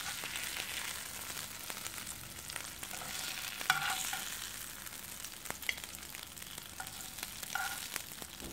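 Chicken pieces sizzling in oil in a ceramic-coated frying pan, a steady hiss, with a few sharp clicks and short scrapes of a metal spatula against the pan as the pieces are lifted out; the loudest click comes a little before halfway.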